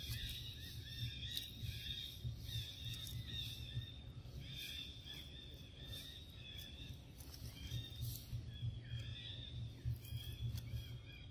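A young macaque eating a mango close up: soft clicks and smacks of chewing and of handling the fruit. Under them runs a steady high chirping from the surrounding forest, over a low rumble.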